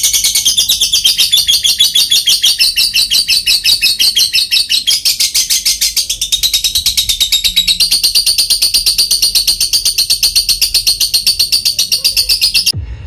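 Lovebird in a long 'ngekek' chattering song: a shrill, rapid trill of about six notes a second, held unbroken for over twelve seconds and cutting off abruptly near the end.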